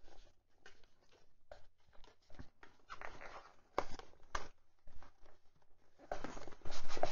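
White paperboard box being opened by hand: an end flap pulled open and the inner box slid out of its sleeve, with scattered light scrapes, rustles and small taps of card on card. The rustling is busiest near the end.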